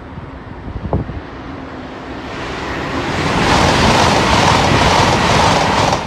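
Dark green passenger train passing close at speed: a rush of wheels on rail and air that builds from about two seconds in, is loudest in the second half, and falls away sharply at the end.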